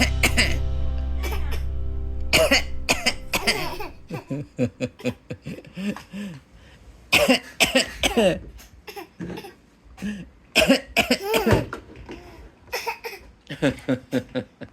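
A man coughing in repeated short fits, with a toddler laughing and vocalising back between the coughs as if being greeted. A music track with a low drone plays under the first three seconds and then stops.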